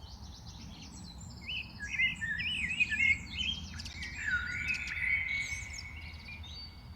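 Several songbirds chirping and calling over one another in quick, wavering notes, with a longer drawn-out note joining in from about four seconds in.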